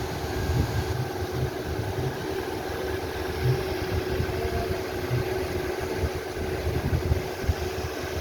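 A steady motor hum, with uneven low rumbling underneath it.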